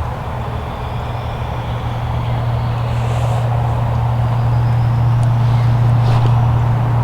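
A steady low engine drone, like a passing vehicle, growing gradually louder.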